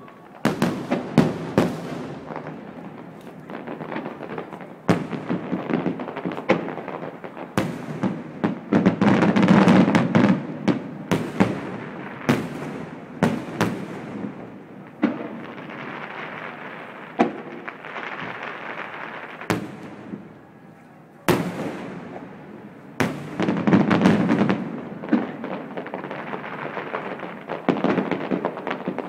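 Fireworks display: many sharp bangs of bursting shells in quick succession, with dense, louder volleys about a third of the way in and again near the end.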